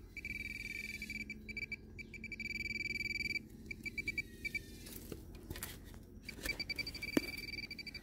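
Handheld metal-detecting pinpointer sounding a steady high tone, breaking into rapid pulses and coming back as a fast-pulsing tone as it is moved over a buried metal target, a small piece of wire. A sharp knock about seven seconds in.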